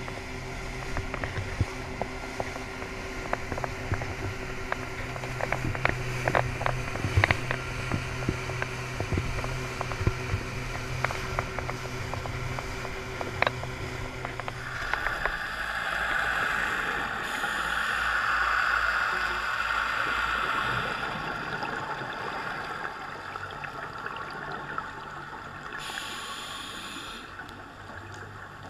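Twin Yamaha outboard motors running at speed, a steady engine note with spray and hull slapping against the waves in many sharp knocks. About fifteen seconds in, the engine note drops away and a steadier rushing noise takes over.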